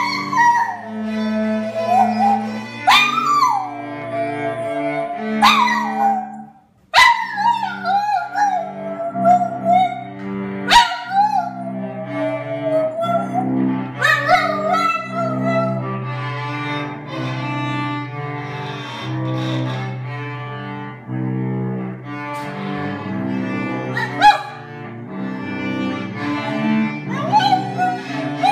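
A Boston terrier howling along to a cello and viola playing slow, sustained bowed notes. The dog gives repeated long howls, each starting high, sliding down and then holding, more than half a dozen times.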